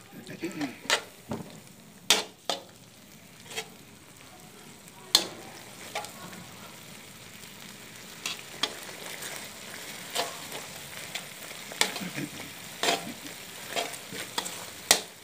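Metal spatula scraping and clicking irregularly against a steel wok as a thick sambal sauce is stirred, over a steady low sizzle of the sauce cooking in the pan. The scrapes come more often in the second half.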